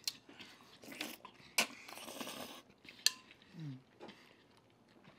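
Close-up eating sounds: sharp wet lip smacks and crunchy bites, with a short stretch of crunching about two seconds in. A brief hummed "mm" comes a little past the middle.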